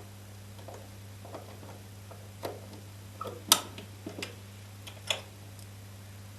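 A run of light, irregular clicks and knocks, about nine in all, the loudest about three and a half seconds in, over a steady low hum.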